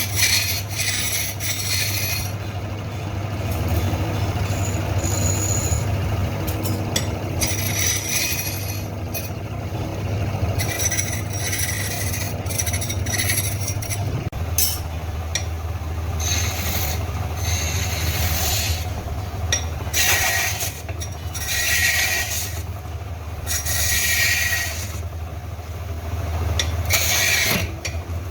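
Steady low machine hum with repeated scraping noises of a second or two each, coming and going.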